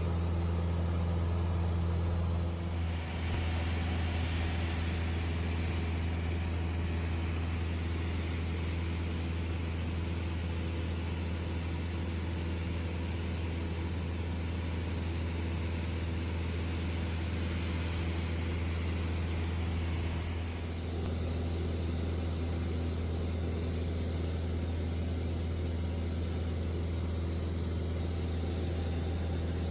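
Piper Dakota's six-cylinder Lycoming piston engine and propeller droning steadily in flight, heard inside the cabin as a strong low hum under a rush of airflow noise.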